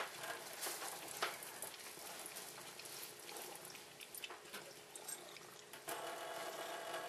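A thin stream of tap water runs from a kitchen faucet into a stainless-steel sink. A few small clicks and taps are scattered through it.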